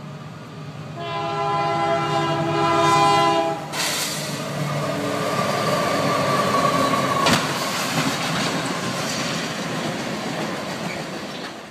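Diesel freight locomotive's air horn sounding a long chord, then the train running past loudly over the rails, with a single sharp bang about seven seconds in as the train strikes a vehicle at the crossing.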